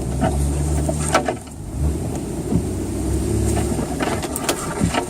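Pickup truck's engine running at low revs as it crawls a rough trail in first gear. Scattered knocks and scrapes come near the start and again near the end, as branches rub along the truck's side.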